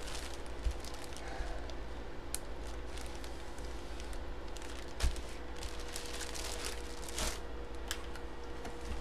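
Clear plastic bag around a jersey crinkling and rustling as it is handled and slid across a table, with a couple of knocks, the loudest about five seconds in. A faint steady hum runs underneath.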